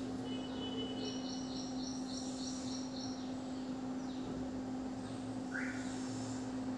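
Quiet room background with a steady low hum, and a bird chirping in a quick run of short high notes from about one to three seconds in, with one more brief call near the end.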